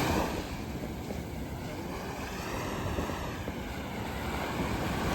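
Sea surf washing up the beach with wind buffeting the microphone, the waves rising again near the end.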